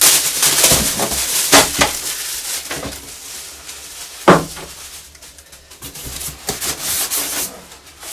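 Plastic wrapping rustling as a bagged power cable is handled, with a single knock about four seconds in, then polystyrene foam rubbing against cardboard as a packing insert is pulled out of the box.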